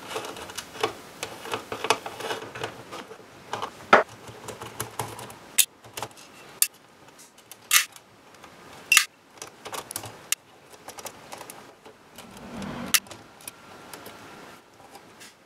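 Irregular metallic clicks and clinks of small fixings, nuts, washers and screws, being worked off a mixing desk's front panel and dropped into a steel parts tray. A few of the louder clinks ring briefly.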